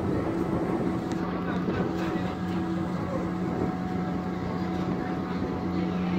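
Ship's deck machinery running with a steady low hum while a towing hawser is recovered, with faint crew voices and some wind on the microphone.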